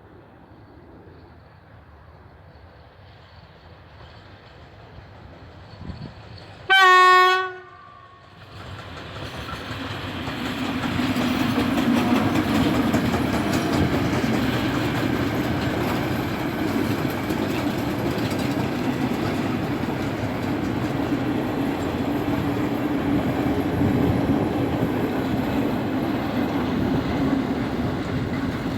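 ET22 electric locomotive sounding one loud horn blast of about a second on its approach, then passing at the head of a work train: the running noise of the wheels and wagons builds up over a few seconds and stays loud and steady.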